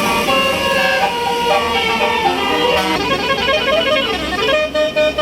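Bus 'basuri' telolet horn, a bank of multi-note air horns, playing a quick stepping melody of many notes, with a run that dips and climbs back up in the second half. A bus engine rumbles underneath.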